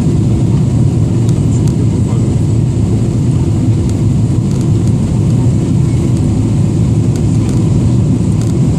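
Steady low roar inside the passenger cabin of a Boeing 777-300ER, the engines and the air rushing past the fuselage, with a few faint ticks.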